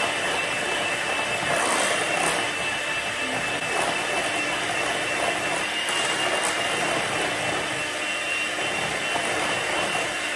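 Electric hand mixer running steadily with a high whine, its beaters whisking egg into a brown-butter and sugar mixture in a glass bowl.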